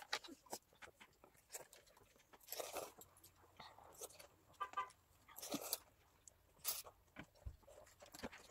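Quiet eating at a meal of cup ramen: noodles slurped and chewed, with chopsticks clicking against cups and bowls. Scattered small clicks and a few short noisy bursts.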